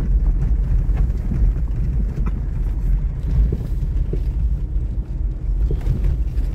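Steady low rumble of a vehicle's engine and tyres on a rough gravel track, heard from inside, with a few short knocks and rattles from the bumpy ground.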